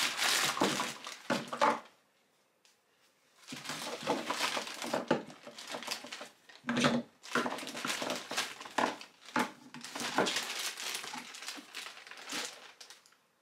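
Clear plastic packaging bags crinkling as they are handled and pulled open, with a pause of about a second and a half early on, and a few light knocks of hard plastic pump parts being set down on the table.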